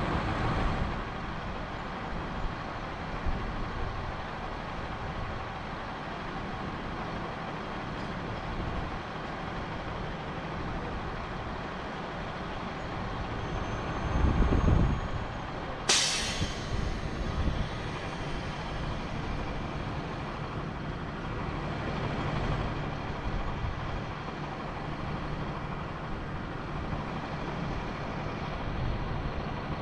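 Crane truck's engine running steadily during a lift, with a low swell of rumble about halfway through followed by a sudden sharp hiss of air.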